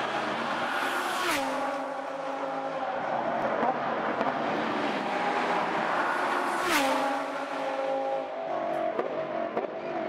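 Audi R8 LMS Ultra GT race cars' V10 engines at full speed, two cars passing close by in turn, each engine note dropping sharply in pitch as it goes past, about a second in and again about seven seconds in.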